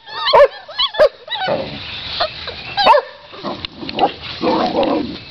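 A litter of pit bull–boxer mix puppies whining and yipping, many short high cries that rise and fall in pitch, thickest in the first couple of seconds, with rougher scuffling noise in between.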